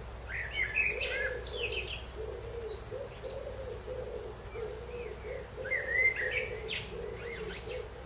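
Songbird singing two short, quick warbling phrases, one right at the start and one about five and a half seconds in, each ending in higher twittering notes.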